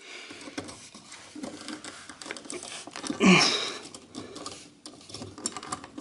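Rustling, scraping and light clicking of electrical wires and a cable connector being handled and pulled out of a dishwasher's junction box, with one louder brief scrape about halfway through.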